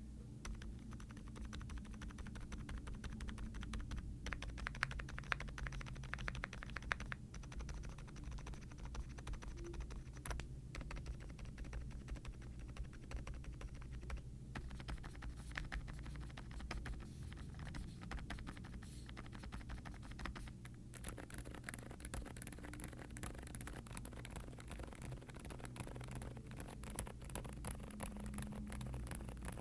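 Continuous fast typing on a Meletrix Zoom75 aluminium mechanical keyboard with Outemu Silent Lemon V3 silent tactile switches, foam-dampened, with a polycarbonate plate and doubleshot ABS keycaps. The keystrokes are muted and near silent, with a few brief pauses in the run.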